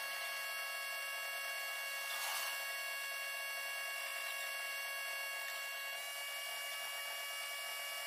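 Hot air rework gun blowing steadily: an even hiss of air with a steady whine from its fan.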